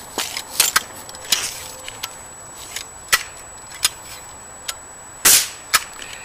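Pellet air rifle being handled and fired: a scatter of sharp clicks and knocks, then one louder, longer shot crack about five seconds in, followed by another click.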